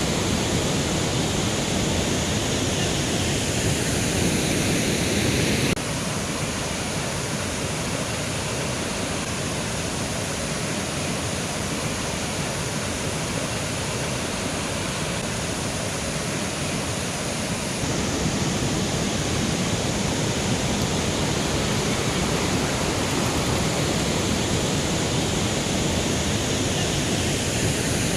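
Mountain river rushing steadily over rocks, a continuous water noise. It drops a little in level suddenly about six seconds in and comes back up about eighteen seconds in.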